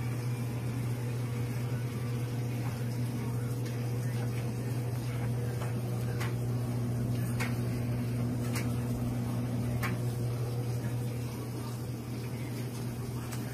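Wall-mounted reverse osmosis water filter system running: a steady low hum with water hissing through it and a few faint ticks.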